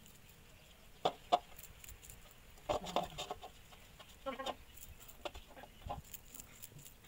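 Short animal calls, several brief ones scattered in small groups, over a quiet background.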